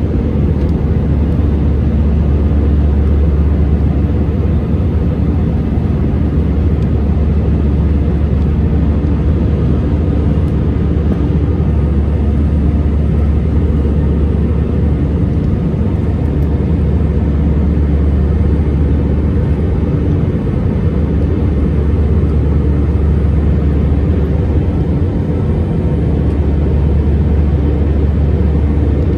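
Steady low rumble of jet engines and rushing air heard inside the passenger cabin of an Airbus A319 airliner in its climb after takeoff.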